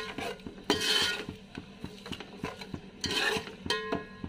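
A metal spoon stirring a thick, wet masala of yogurt and spices in an aluminium pot. It makes quick, regular ticks against the pot, about four or five a second, with louder scrapes about a second in and again around three seconds.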